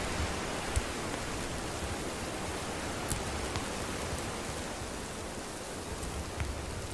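Campfire burning with a steady hiss and a few sharp crackling pops, the clearest about a second in and about three seconds in.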